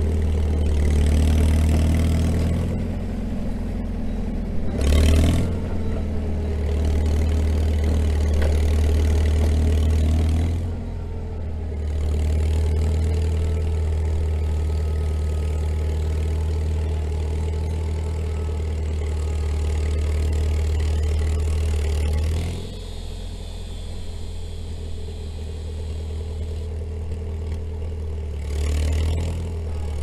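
International Harvester TD-6 crawler dozer's engine running under load while pushing snow with its blade. The engine sound eases off briefly about ten seconds in and drops lower about two-thirds of the way through.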